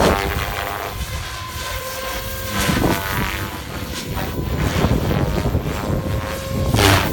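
SAB Goblin 700 Havok electric RC helicopter in flight: the whine of its brushless motor and the rotor blades holds several steady tones. Gusting wind buffets the microphone underneath.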